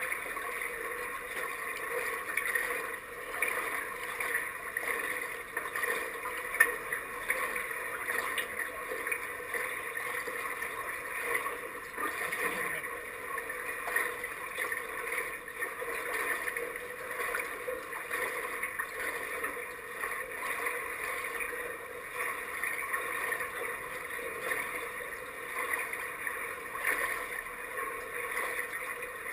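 Steady wash of water lapping and gurgling against a camera sitting at the waterline of an indoor pool, with one sharp knock about six seconds in.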